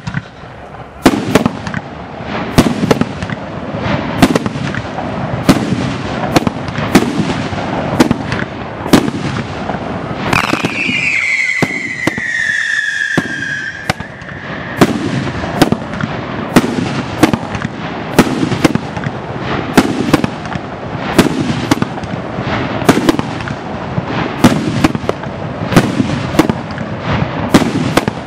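A 25-shot, 2.5-inch fireworks shell cake firing in sequence: brocade kamuro shells with brocade tails go off as sharp bangs about once a second over a continuous rumble and crackle of launches and bursts. About ten seconds in, a whistling tone falls in pitch for about three seconds.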